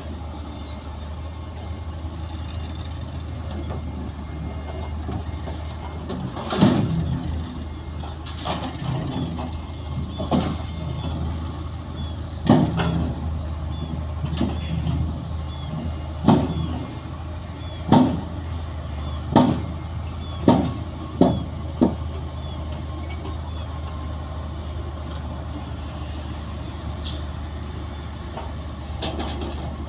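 Heavy diesel engine of earthmoving machinery running steadily, with a series of about ten sharp knocks and clanks, irregularly spaced, through the middle of the stretch.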